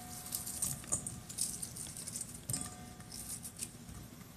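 Sliced onion broken apart into rings by hand and dropped into a stainless steel bowl of cucumber slices: faint, irregular crinkly rustling with small pattering ticks.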